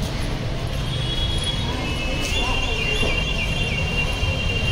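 Steady low rumble of street traffic, with a high, thin warbling sound from about a second in.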